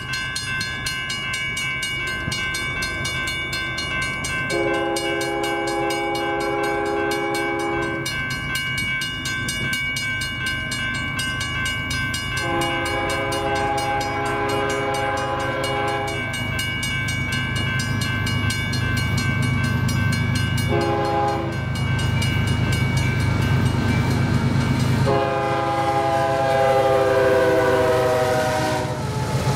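Grain hopper cars rolling past with a steady rumble and the clickety-clack of wheels over the rail, with a steady high whine above it. A diesel locomotive horn ahead of the train sounds the grade-crossing signal: two long blasts, a short one and a final long one that sags slightly in pitch at its end.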